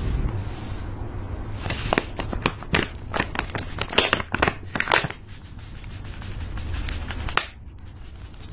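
Small plastic zip bag crinkling and crackling as fingers handle and open it: a dense run of sharp crackles for about three seconds, then quieter.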